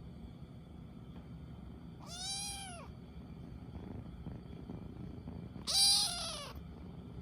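Munchkin kitten meowing twice, each meow under a second long and rising then falling in pitch; the second, about three and a half seconds after the first, is louder.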